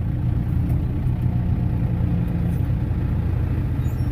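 Farm tractor's diesel engine running steadily with an even, low hum.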